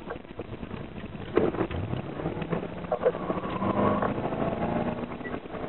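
Car engine running with road noise, heard from inside the cabin as the car drives off; the engine note rises about a second and a half in and then holds steady.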